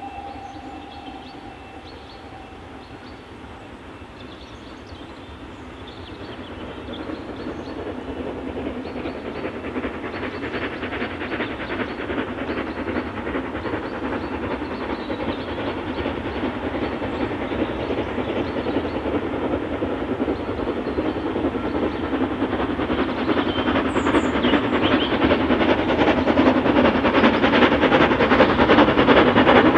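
Steam locomotive hauling a train of coaches, approaching and growing steadily louder, its rapid exhaust beats and the rumble of wheels on the rails building to the end. A whistle note fades out in the first second.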